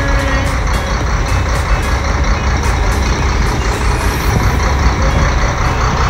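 Boat engine running steadily: a constant low rumble under a broad rushing noise.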